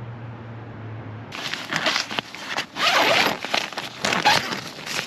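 A tent door being unzipped and its nylon and mesh flaps rustling as they are pushed aside, in several uneven scraping strokes. These start suddenly about a second in, after a faint low hum.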